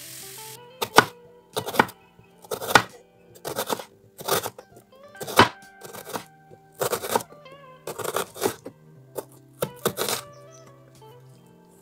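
Kitchen knife slicing an onion on a wooden chopping board: about a dozen sharp cuts, roughly one a second, some coming in quick pairs.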